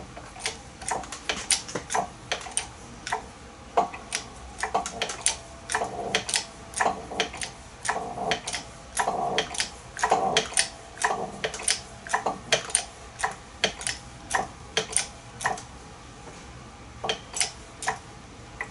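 Sharp, irregular metallic clicks and ticks as a hydraulic press pushes the outer sleeve of a Jacobs ball-bearing Super Chuck back onto its body. The clicking comes fast and dense through the middle, then thins out to a few last clicks near the end as the sleeve seats.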